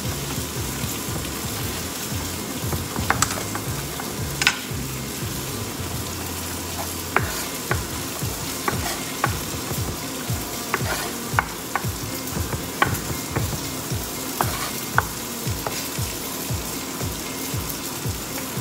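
A Victorinox chef's knife chopping parsley on a wooden cutting board: a few knocks at first, then quick runs of knocks through the second half. Under it runs a steady sizzle of steak cooking.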